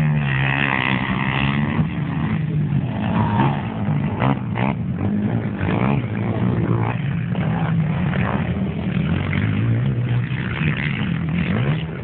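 Motocross motorcycle engines revving up and down as the bikes race over the dirt track, the engine pitch rising and falling again and again.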